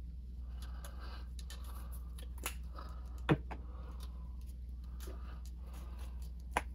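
A plastic spice shaker of onion powder being shaken over raw chicken, then handled and put down: a few sharp clicks and knocks, the loudest a little over three seconds in and two more near the end, over a steady low hum.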